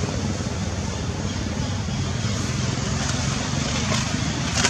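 Steady low rumble with an even hiss of outdoor background noise, with a few sharp clicks near the end.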